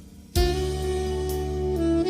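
Background music: an instrumental passage of held notes that briefly dips, then a new sustained chord comes in about a third of a second in.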